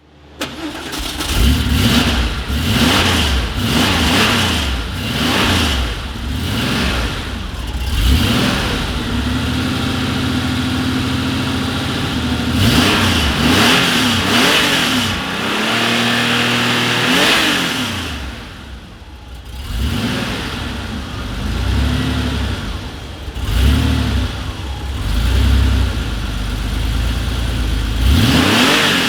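1990 Porsche 911 Carrera 4's air-cooled flat-six starting up, then revved again and again, the pitch rising and falling with each blip between short steady idle stretches. It drops to a quieter idle for a moment about two-thirds of the way through.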